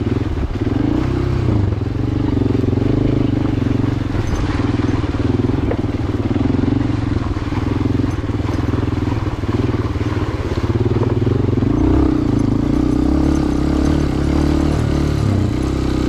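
Honda CRF dirt bike's single-cylinder four-stroke engine running at low revs while it is ridden slowly over a stony creek bed, the throttle rising and easing a little as it picks its way.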